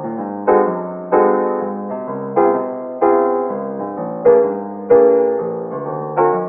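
Background piano music: soft chords struck about every half second to second, each one fading before the next.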